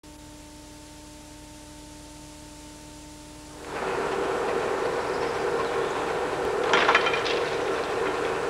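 Faint steady hum over the blank start of a camcorder tape, then from about four seconds a steady low drone, with a short clatter about seven seconds in as the level-crossing gates are swung shut across the road.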